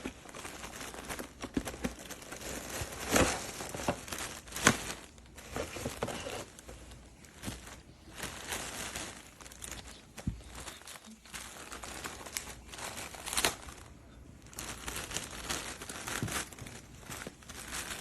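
Irregular rustling and crinkling with a few sharp clicks, like things being handled close to the microphone.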